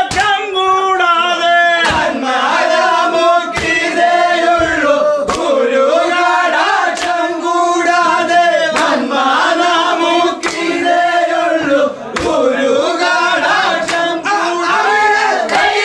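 A group of men singing Vanchipattu, the Kerala boat song, in loud unison chant, with sharp hand claps every second or two.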